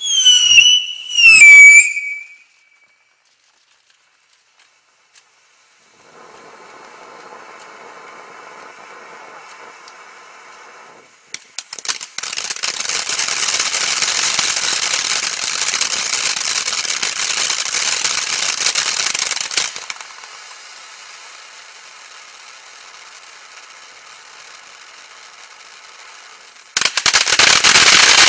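Magnus 'Luxury Cruise' firework fountain. A whistle falls in pitch and dies out in the first two seconds, then after a few seconds of near silence the fountain starts to hiss. From about 11 to 20 s it sprays loudly with dense rapid pops, drops back to a softer hiss, and turns loud again near the end.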